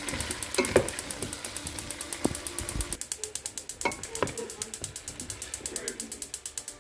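Fast, even mechanical ticking, about ten ticks a second, with a few louder knocks as a wooden spatula stirs cubed potatoes in a steel pot.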